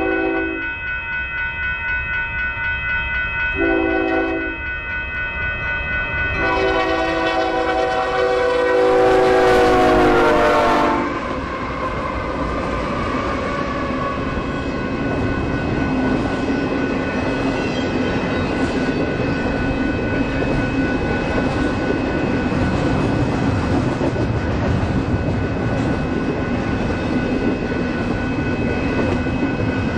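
Union Pacific diesel freight locomotive's air horn: a short blast about four seconds in, then a long blast whose pitch drops as the locomotive passes. The horn stops about eleven seconds in, and the freight train's rolling rumble and clatter of wheels on rail carries on.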